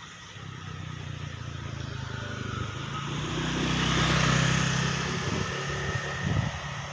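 A motor vehicle approaching and passing close by, its engine growing louder to a peak about four seconds in, then easing off.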